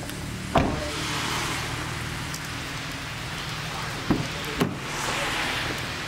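A few sharp knocks over a steady low hum: a loud one about half a second in, then two close together near the end, fitting an open car door and its panels being handled.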